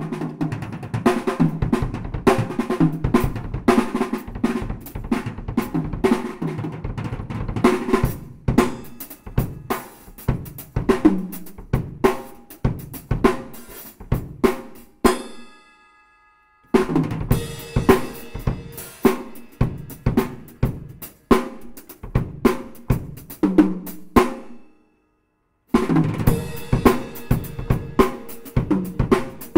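Tama acoustic drum kit played in a fast, busy run of strokes on snare, toms, bass drum and cymbals. There is a short break about halfway, where one ringing note dies away, and a gap of about a second and a half near the end before the playing resumes.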